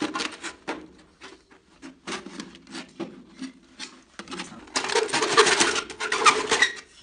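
A knife sawing and scraping into the end of a cylindrical coin bank, cutting it open: a run of irregular scratches and clicks that grows denser and louder about five seconds in.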